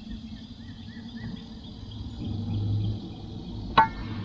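Steady high insect chorus with a few short bird chirps in the first second or so, then a single sharp clink near the end, the loudest sound here.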